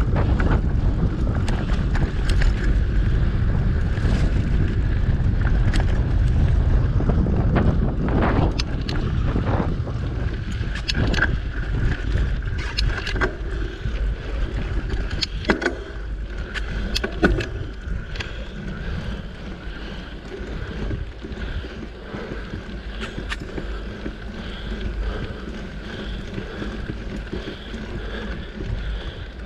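Wind buffeting the microphone of a mountain bike ride on a dirt trail, with the bike rattling and scattered clicks and knocks as it rolls over bumps. The wind rumble is heaviest in the first several seconds and eases in the second half.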